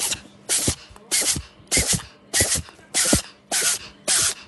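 A hairless cat hissing over and over, about eight short sharp hisses in a steady rhythm, each with a faint throaty edge.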